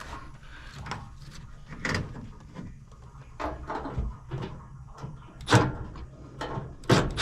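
Irregular knocks, clunks and scrapes as the sheet-metal fan coil unit is handled and shifted into place, the sharpest knocks coming in the second half.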